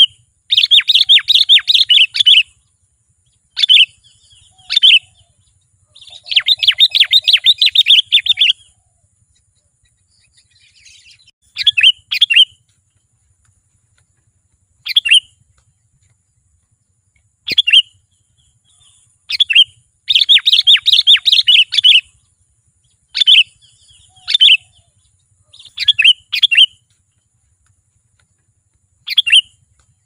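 Sooty-headed bulbul calling: three bursts of rapid chattering notes, each about two seconds long, with short single notes scattered between them.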